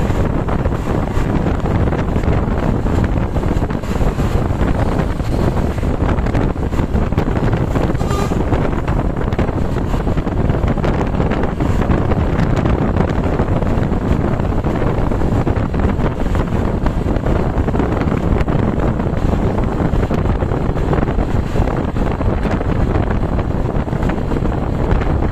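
Loud, steady wind noise buffeting the microphone, mixed with the rumble of road traffic.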